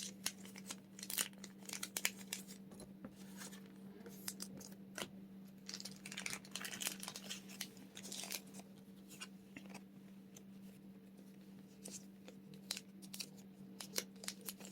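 Foil Pokémon booster pack wrapper being crinkled and torn open by hand: a long run of irregular sharp crackles and rips, with the opener struggling to get it open.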